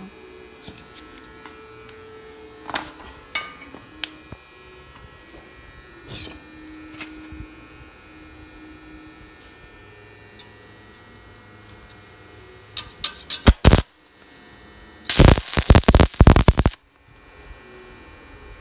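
ARC160 inverter stick (MMA) welder humming steadily with a faint whine, with a few light clicks. About thirteen seconds in, the electrode arc is struck with a short crackling spurt. Near the end a louder, dense arc crackle lasts about a second and a half and then cuts off suddenly.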